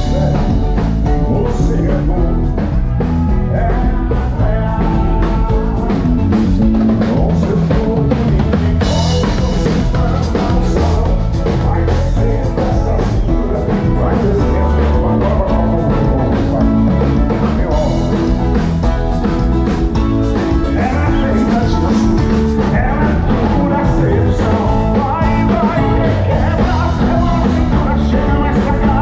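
Live band playing a song on stage during a soundcheck: drum kit, electric bass, keyboard and acoustic guitar, with singing.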